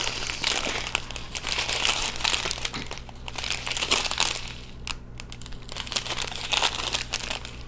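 Small clear plastic bags of diamond-painting drills crinkling as they are handled and squeezed, with short lulls about three and five seconds in.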